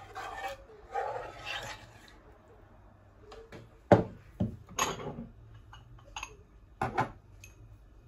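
A ladle scraping through thick mushroom cream sauce in a metal pan, then a sharp knock about four seconds in as the pan is set down on the worktop. A few lighter knocks and clinks follow.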